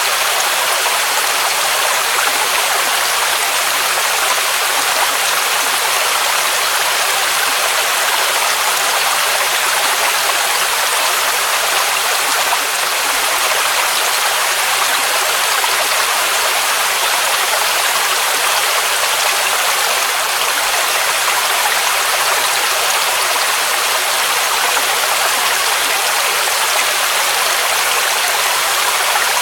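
Waterfall rushing: a steady, unbroken hiss of falling water, bright and airy with little low rumble.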